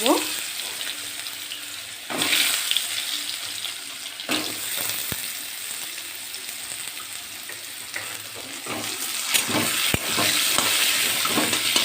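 Potatoes sizzling as they fry in hot oil in a kadai, stirred with a spatula. The sizzle swells about two seconds in and again near the end, with two sharp clicks along the way.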